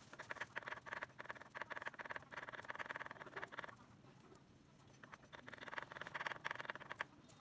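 Cleaver rapidly chopping garlic on a thick wooden chopping board, a fast run of knocks. It stops for about a second and a half in the middle while the garlic is gathered into a pile, then starts again.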